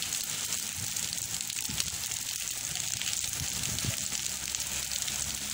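Heavy tropical downpour falling on paved walkways and trees, a steady dense hiss.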